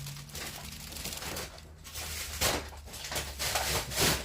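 Grocery packaging being handled: irregular rustling, with a sharper knock about two and a half seconds in and another near the end as items are put down.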